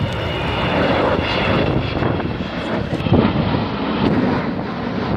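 Avro Vulcan bomber's four Rolls-Royce Olympus turbojets during a low flypast: loud, steady jet noise, with a faint high whine that fades after about the first second.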